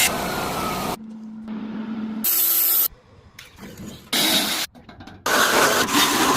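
A string of short clips of power tools at work on the build, loud hissing cutting or grinding noise. In the first clip the tool's pitch falls slowly as it is loaded, and another clip holds a steady low hum.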